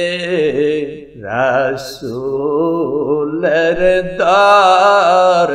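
Devotional chanting of a Bengali milad verse, sung slowly in long, wavering held notes with short breaks between phrases.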